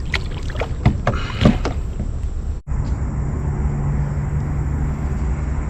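A few sharp knocks and rattles of handling in a small boat in the first couple of seconds, then steady low wind and water noise on the microphone.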